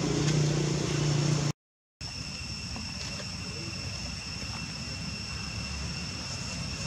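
Outdoor ambience: a steady low motor-like hum for about a second and a half, cut off abruptly. After a brief silence comes a steady high-pitched whine over a faint low rumble.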